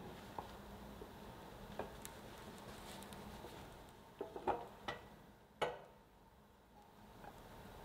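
Light metal clicks and knocks from a frying pan and a metal ring mould being handled and lifted off a gas stove's grate: a cluster of them a little past halfway and one sharper knock just after, over a faint steady hum.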